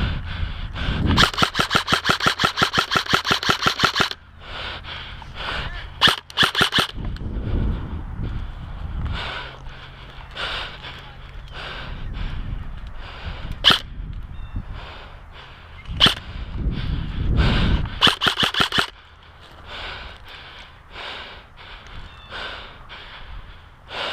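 Airsoft rifle firing on full auto: a rapid burst of about ten shots a second lasting about three seconds, then a short burst, followed later by two single shots.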